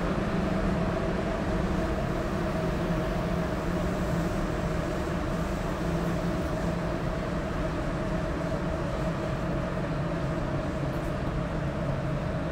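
Running noise heard inside a rubber-tyred Sapporo Municipal Subway Tōhō Line 9000-series car (no. 9110) as the train travels between stations. It is a steady rumble with a low hum and a fainter, higher steady whine running through it.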